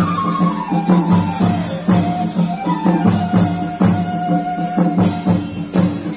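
Live Lahauli folk music: a melody that steps down and then holds one long note, over a steady percussion beat of about two strokes a second.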